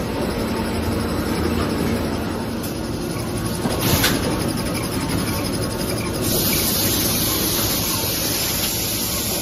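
Kitchen towel paper production line running: a steady mechanical clatter of rollers and conveyors, with one sharp knock about four seconds in and a hiss joining about six seconds in.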